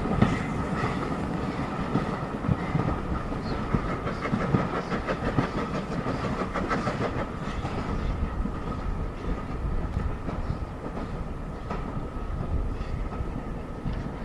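Railway carriage running along the track, its wheels clattering over the rail joints over a steady rumble, with a thin steady whine above. There are a couple of heavy knocks right at the start, and the sound eases slightly toward the end.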